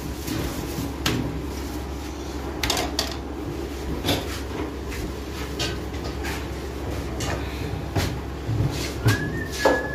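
Wire tongs clicking and knocking against a steel griddle plate as flatbread is turned and moved, about ten irregular taps, over a steady low hum. A brief high tone sounds near the end.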